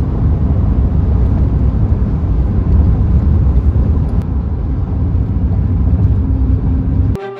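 Steady low rumble of a moving car's engine and tyres on the road. Near the end it cuts off suddenly as a music track with a flute-like melody begins.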